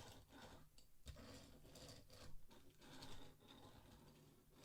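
Near silence with faint room hum and a few small, scattered clicks, such as from handling small toy cars.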